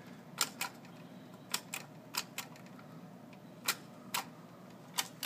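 Arcade-style push buttons on a homemade five-button chord keyboard clicking as they are pressed and released. About ten sharp clicks, some single and some in quick pairs, unevenly spaced.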